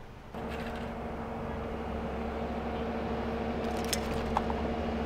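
A vehicle engine idling steadily with a low hum, starting abruptly about a third of a second in. A few light clicks are heard around four seconds in.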